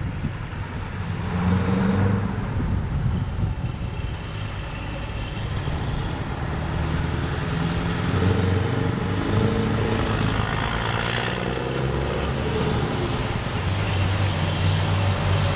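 Scania R580 V8 and DAF CF tractor-trailers' diesel engines approaching, a low drone with shifting pitch that grows louder as the lorries draw near.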